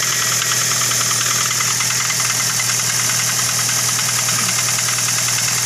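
Toyota Avanza engine running with a steady, rough, rapid rattle from the front timing-chain area. The sign of a worn timing chain that has to be replaced.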